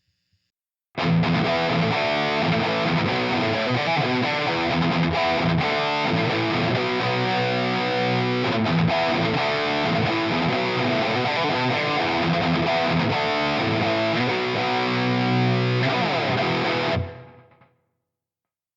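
Electric guitar played through a Valeton GP-200 multi-effects processor on its distorted preset 30-C. It starts about a second in, plays continuously, and fades out near the end.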